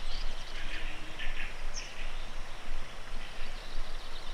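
Small birds chirping faintly a few times over a steady rushing noise.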